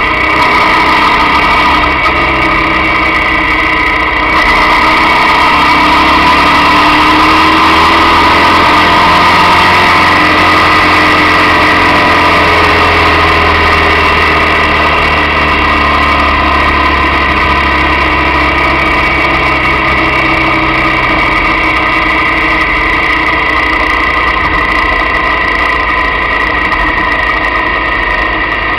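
Motorcycle engine running steadily at road speed, heard close up from a camera mounted on the bike, with road and wind noise underneath. The engine pitch sways slightly in the middle as the throttle changes.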